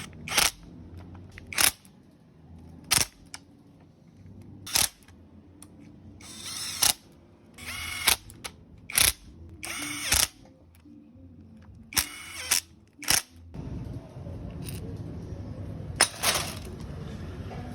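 A handheld power tool run in about a dozen short bursts, some of them brief whirs that waver in pitch. From about fourteen seconds in, a steady low rumble runs underneath.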